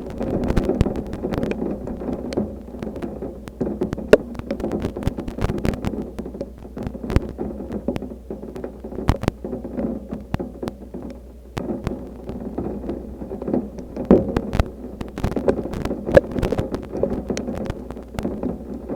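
Storm wind rumbling on the microphone, with many irregular sharp taps of rain striking close by.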